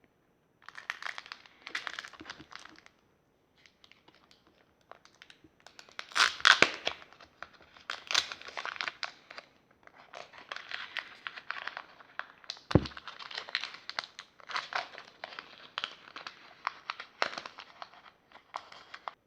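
Pokémon TCG booster pack's foil wrapper crinkling and tearing as it is worked open by hand, in repeated bursts of crackling. There is one sharp knock about 13 seconds in.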